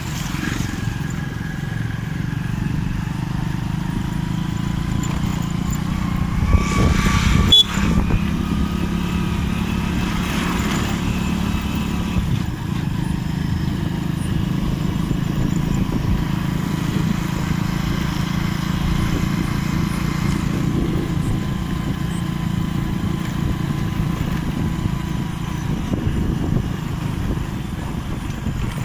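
Motorcycle engine running steadily while riding, heard from the rider's seat. About seven seconds in there is a louder passage that ends in a sharp click.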